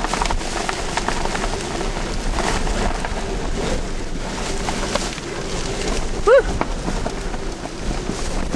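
Hurricane winds and rain beating on the microphone: a steady rushing noise with gusty crackles. A single short pitched cry cuts through about six seconds in.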